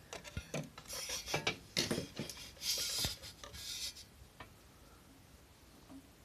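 Handling noise: rubbing and scraping with a few light knocks for about four seconds, then only faint ticks.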